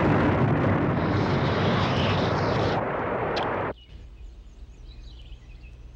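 A loud, sustained rumbling, explosion-like noise that cuts off abruptly a little over halfway through. A quiet background with faint high chirps follows.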